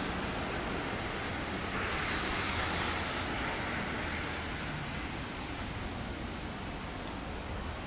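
Tobu 200 series electric train running away along the track: a steady rushing noise that eases off slightly in the second half.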